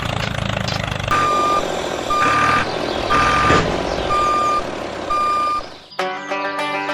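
Vehicle reversing alarm beeping five times, about one beep a second, over a low engine rumble. Music starts near the end.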